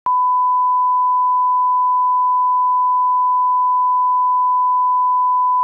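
Bars-and-tone 1 kHz reference test tone: a single steady beep at one unchanging pitch that stops abruptly.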